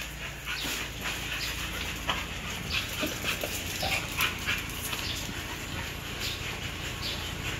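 American bully puppies whimpering and yipping in many short, scattered high squeaks as they jostle together.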